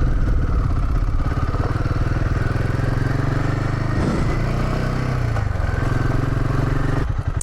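Royal Enfield Himalayan 450's single-cylinder engine running under way on a dirt road, its pitch shifting about four seconds in. Near the end the note drops to a slower, even pulsing as the throttle closes.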